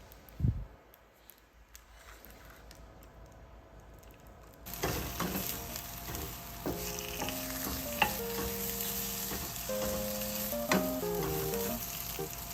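Food sizzling and frying in a hot pan, starting suddenly a little over a third of the way in and then going on steadily. A single low thump comes just before it, near the start.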